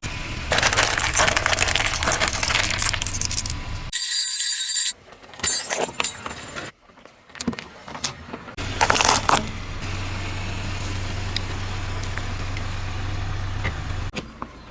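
Car engine running with crackling and crunching as objects are crushed under its tyres, heard in several short clips that cut abruptly, with a steady low engine hum in the last few seconds.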